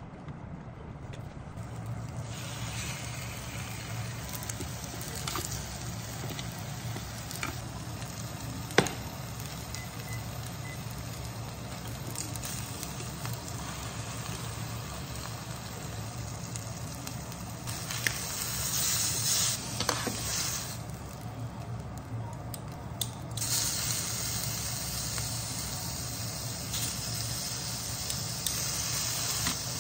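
Sausages and then chicken pieces sizzling in oil in a rectangular tamagoyaki frying pan, a steady hiss that grows louder twice, around the middle and again a little later, as food goes into the hot pan. A sharp click about nine seconds in.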